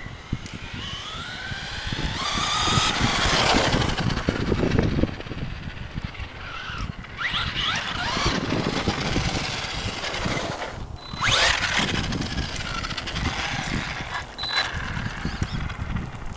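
Brushless electric motor of an FS Racing Victory X RC monster truck whining, rising and falling in pitch as the truck speeds up, slows and passes several times. The loudest passes come about 3, 8 and 11 seconds in.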